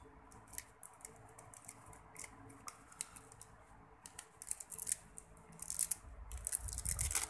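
Crisp green-leaf lettuce crinkling and tearing between fingers as it is folded into a wrap: a string of soft crackles and clicks, busier near the end.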